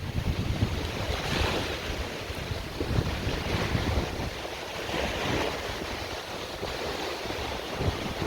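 Strong gusting wind of about 15 m/s buffeting the microphone, with a heavy low rumble and gusts that swell and ease every second or two.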